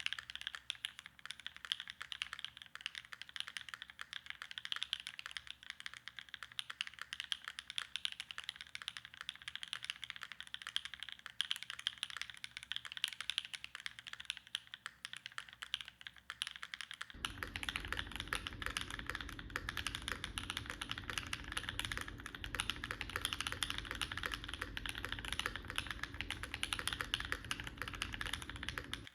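Fast, continuous typing on a Brutal65 V2 custom 65% mechanical keyboard with hand-lubed Gateron Smoothies linear switches, GMK keycaps and plate and case foam. The strokes come in a dense stream. About 17 seconds in, the recording changes to a phone microphone: duller at the top, with a low rumble under the typing.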